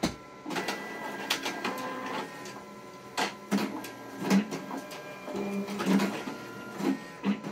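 Zebra ZXP Series 9 card printer running a print job: its motors start about half a second in and run with a whine, punctuated by repeated clicks and knocks as the card is moved through the printer.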